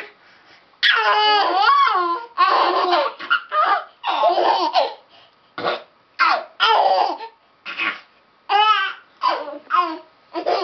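Baby twins babbling and laughing at each other, high-pitched bursts of baby voice with short pauses between them, starting about a second in.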